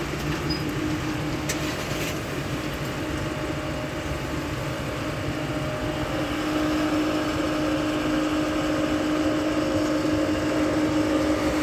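Steady mechanical hum of an automatic car wash's machinery, with a car rolling slowly out of the wash tunnel. A steady droning tone in the hum grows louder about six and a half seconds in.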